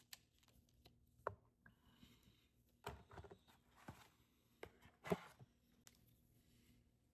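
Faint clicks and knocks of hand tools being handled and taken from a molded plastic tool case, with a few sharper taps, the loudest about five seconds in.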